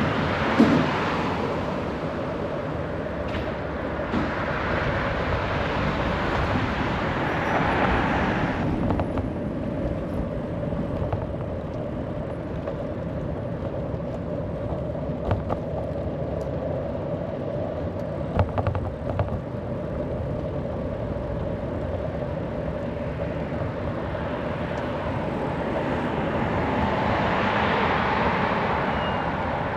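City street noise heard from a moving bicycle: a steady rumble of tyres and wind, with louder swells of passing traffic near the start and again near the end, and a few brief knocks about halfway through.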